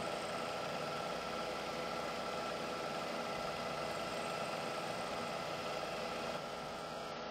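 Milling machine running a small 4 mm end mill through the flange of a broach bushing: a steady machine hum with several steady tones, a little quieter just before the end.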